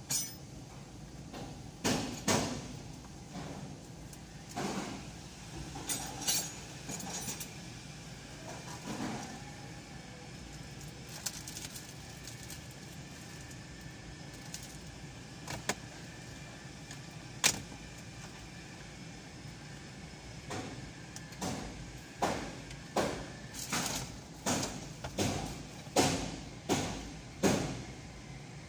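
Scattered sharp clicks and knocks over a steady low background noise, then a run of about eight evenly spaced knocks, a little under one a second, near the end.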